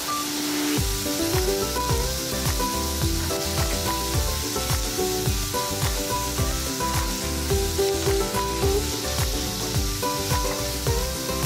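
Ground pork and onions sizzling in a non-stick frying pan while a wooden spatula stirs them, under background music with a steady beat.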